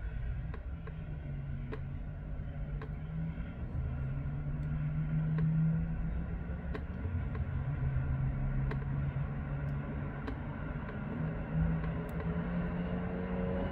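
Road traffic at a city junction: cars and motorcycles passing, a steady low engine hum that swells and fades as vehicles move through.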